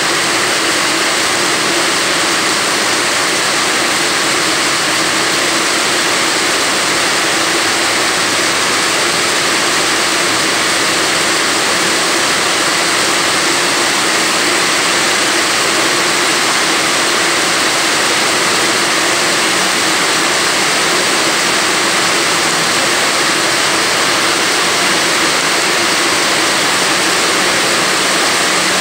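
Heavy rain falling on a metal canopy roof and wet pavement: a loud, steady, even hiss that does not let up.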